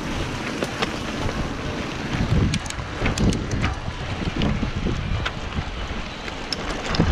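Mountain bike riding over a rough dirt road, heard from a handlebar-mounted camera: wind buffeting the microphone and a steady tyre rumble, with many short rattling clicks from the bike jolting over bumps.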